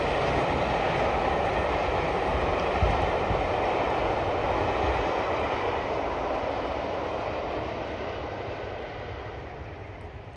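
Steam-hauled train, Jubilee-class 4-6-0 locomotive 45699 Galatea and its coaches, running away up the line, its noise fading steadily over the last few seconds.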